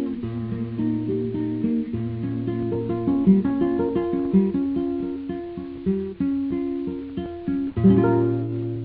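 Acoustic guitar playing the instrumental close of a ballad, picking a melody over held bass notes, then striking a final chord about eight seconds in that rings out.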